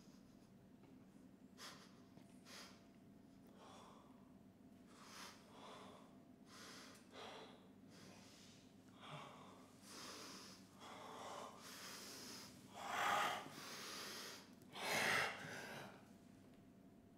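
A person breathing hard in a series of noisy huffs and gasps that grow louder, the two strongest near the end.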